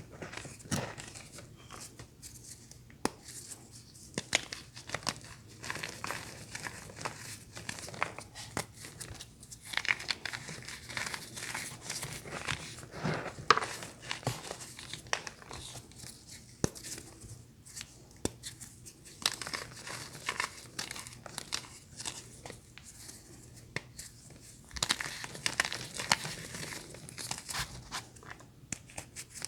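Crunchy material being crumpled, crushed and torn by hand: uneven crinkling and crackling with sharp snaps scattered throughout.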